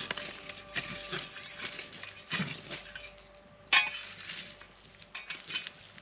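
A metal fire tool scraping and clinking against the coals and rocks of a stone campfire ring as the fire is stirred, with a sharp knock a little before four seconds in.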